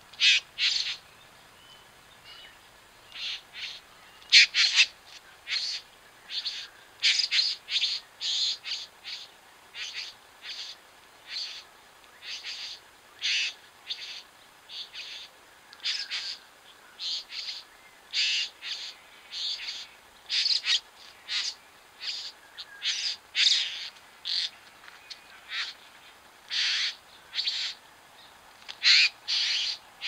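Bowerbirds calling: a long run of short, harsh, scratchy calls in quick succession, a little more than one a second, some louder than others.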